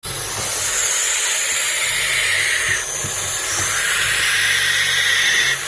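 An owl hissing in two long, snake-like breaths, one after the other.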